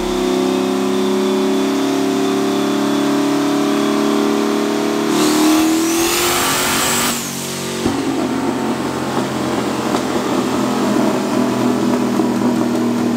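Turbocharged 5.3 L LS V8 making a wide-open pull on a chassis dyno on methanol, its note climbing slowly under load. About five seconds in, a loud rush of hiss with a rising turbo whistle comes in. Shortly after seven seconds the driver lifts off and the engine drops back to a rougher, lower running.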